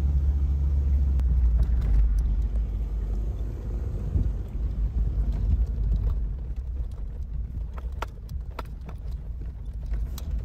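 Low rumble of a vehicle heard from inside its cab as it drives slowly along a dirt track, growing quieter in the second half as it slows, with a few light clicks and knocks near the end.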